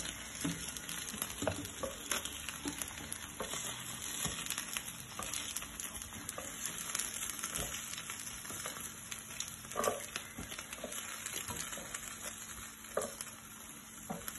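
Chicken wings sizzling on a hot ridged grill plate, a steady hiss. Scattered clicks and taps come from metal tongs lifting the pieces into a stainless steel pot.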